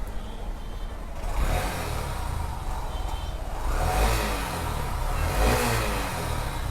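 Honda SP 125's single-cylinder four-stroke engine running and revved a few times with the throttle. It sounds smooth, like a new bike, now that the worn engine bearing behind its earlier noise has been replaced.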